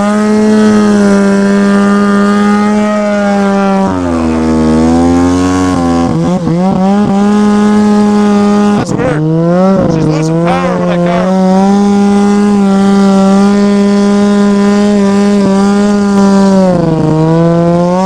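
Ski-Doo 700 snowmobile's two-stroke engine running hard at a high, steady pitch while riding through snow. The pitch sags and recovers as the throttle eases about four seconds in, briefly again about nine seconds in, and near the end.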